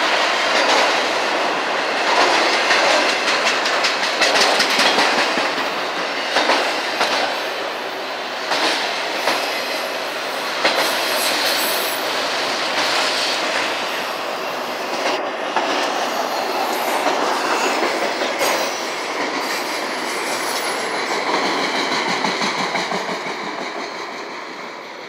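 Freight train of enclosed autorack cars rolling past close by: a steady rumble and rattle of steel wheels, with repeated clicks as they cross rail joints. It fades over the last few seconds as the end of the train goes by.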